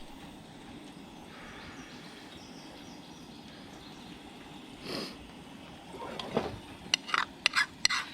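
A steady low hiss, then about six seconds in a utensil starts clinking and scraping against a pan as eggs are stirred.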